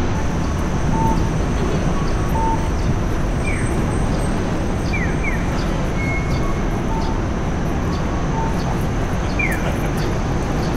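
Steady street traffic noise, with a Japanese pedestrian crossing signal chirping electronic bird calls: a single falling 'piyo' chirp, then a double 'piyo-piyo' a moment later, repeating. A few short beeps sound in between.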